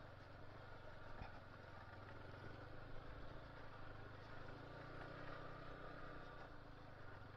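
Motorcycle engine running steadily at low speed, heard faintly.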